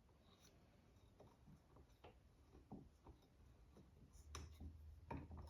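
Near silence with faint, scattered clicks and taps of parts being handled while a chainsaw turbo charge pipe is fitted. A low hum comes in about four seconds in.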